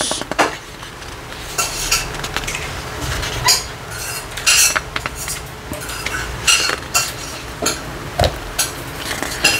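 Paper pages of a guidebook being turned and handled: a string of short, irregular rustles and flicks.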